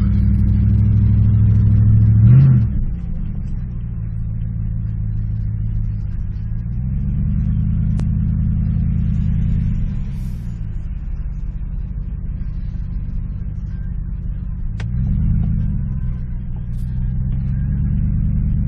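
Vehicle engine running, its pitch rising and falling a few times as it speeds up and slows down.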